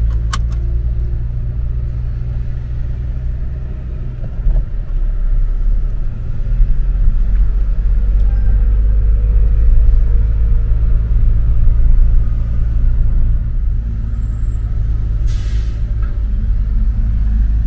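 Car engine and tyre noise heard from inside the cabin while driving slowly: a steady low rumble, with a brief hiss about fifteen seconds in.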